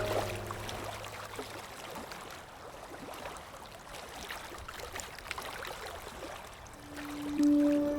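Lake water trickling and splashing softly with many small ticks of water. Soft music dies away at the start, and a sustained flute-like note comes in near the end.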